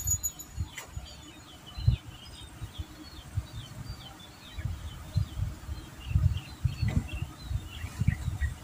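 Small birds chirping over and over in short, quick, high calls, with irregular low gusts of wind buffeting the microphone.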